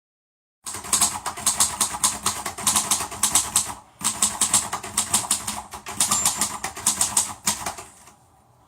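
Rapid clicking, like keys being typed, in two runs with a brief pause about four seconds in, fading out near the end.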